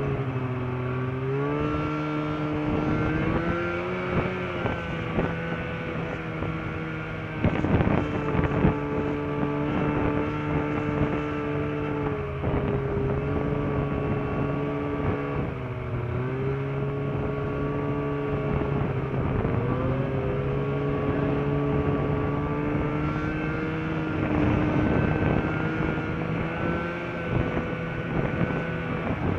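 Snowmobile engine running at a steady cruise, its pitch dipping and rising slightly with the throttle several times. A few loud knocks and rattles about eight seconds in, from the sled jolting over rough trail.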